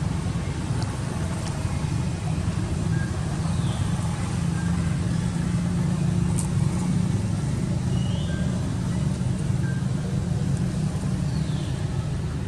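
Steady low engine rumble of a motor vehicle running, unchanging throughout, with a few faint short bird chirps above it.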